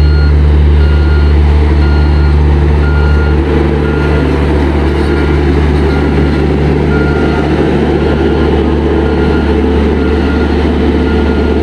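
Heavy construction machine's engine running steadily at a low, loud hum, with its reversing alarm beeping regularly in the first few seconds and again near the end.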